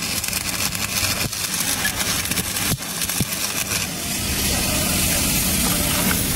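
A steady low machine hum under a hiss, with a few short clicks.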